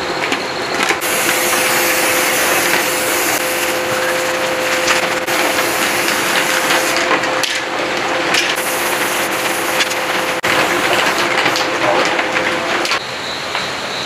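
Paint spray gun spraying a metal generator housing: a steady hiss with a steady hum beneath it, briefly broken twice, stopping about a second before the end.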